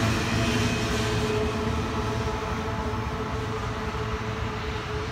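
Last well car of an intermodal container train rolling away on the rails: wheels rumbling with a steady tone, slowly fading as the train recedes.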